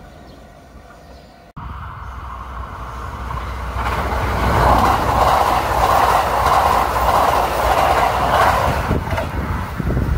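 Red electric express train passing close at speed: its rumble and wheel noise build over a couple of seconds, hold loud for about five seconds as the cars go by, then fall away. There is a sudden cut about a second and a half in, with a quieter scene before it.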